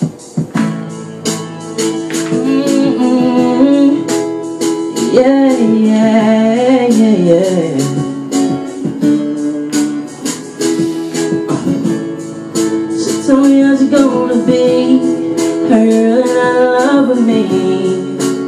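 Intro of a song's backing track: guitar over a steady drum beat, with a melody line that glides up and down.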